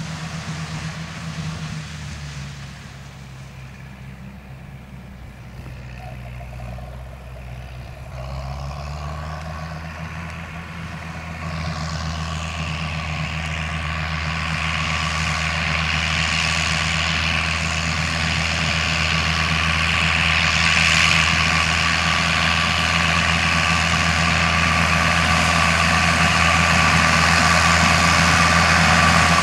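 Fiat 780 E tractor's diesel engine running steadily under load, driving a flail stalk shredder through dry maize stalks. It grows steadily louder from about ten seconds in as the tractor comes closer, with the rushing whirr of the chopping flails rising over the engine note.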